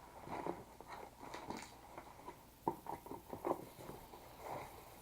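Faint handling of a cardboard box and its packaging as it is opened: scattered light knocks, taps and rustles, a few sharper ones around the middle.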